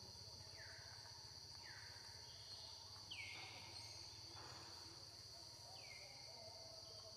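Faint, steady high-pitched drone of insects, with four short chirps falling in pitch scattered through it.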